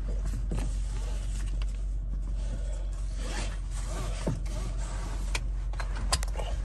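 Steady cabin noise of a 1997 Honda Odyssey's 2.2-litre four-cylinder and tyres while driving on the road, a constant low drone with a few light clicks.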